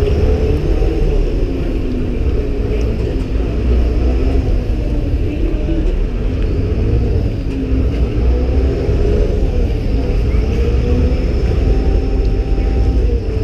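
A vaporetto's diesel engine running with a loud, steady low rumble, its pitch wavering slightly as the boat comes alongside a landing stage.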